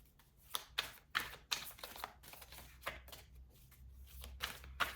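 Tarot cards being shuffled and handled by hand: a run of irregular clicks and flicks of the cards.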